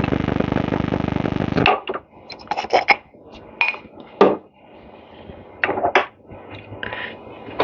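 A loud, steady rushing noise cuts off suddenly about a second and a half in. Then come scattered light clinks and knocks of small metal starter parts being handled and set down.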